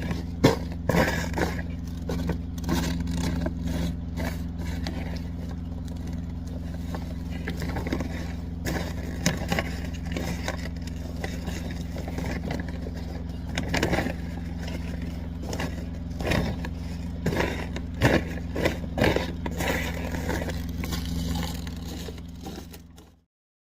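Frozen, stiff tarp crackling and scraping in irregular strokes as it is handled and folded, over the steady hum of an idling truck engine. The sound cuts off suddenly near the end.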